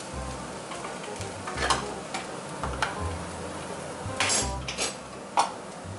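Hand-held can opener being worked around a tin can, giving scattered sharp metal clicks, with a cluster about four seconds in, over the steady sizzle of mince frying in a pan.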